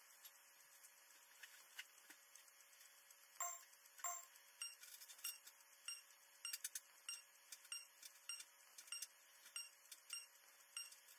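Near silence: faint short high electronic beeps and ticks, with two clicks about three and four seconds in, then beeps about twice a second over a faint steady hum.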